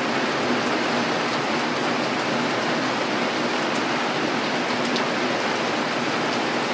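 Steady rain falling on corrugated metal roofing and leafy plants, with a few single drops ticking close by.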